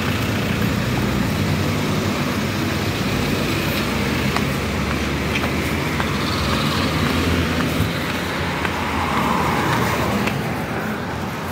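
Road traffic: cars driving past on a city street, a steady rush of tyres and engines.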